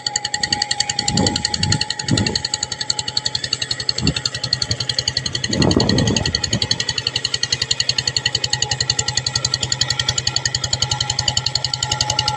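Two-wheel hand tractor's single-cylinder diesel engine running steadily under load, a rapid even chugging, as it pulls a plough through flooded paddy mud. A few louder bursts of noise rise over it about a second or two in and again around six seconds in.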